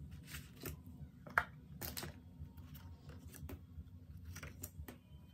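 Paper photo strips being handled and laid down on a table: light rustles and small taps, the sharpest one about a second and a half in.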